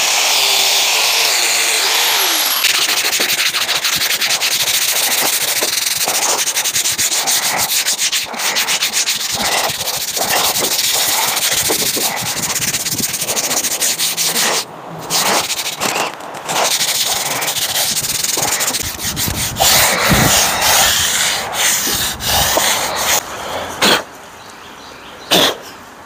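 Sanding rust off the sheet-metal cowl of a 1950 Ford F1 pickup: a gritty scraping that goes on with short breaks about fifteen seconds in and near the end.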